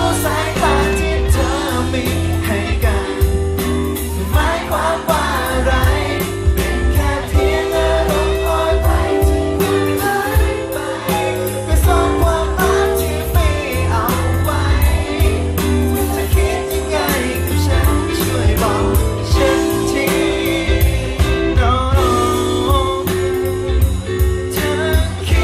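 Pop song performed live over a backing track through stage speakers, with a steady beat, strong bass and a singing voice.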